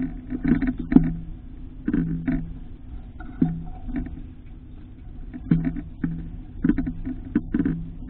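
Irregular knocks as an eastern bluebird pecks dried mealworms from the feeder's metal dish, some knocks followed by a short low ring.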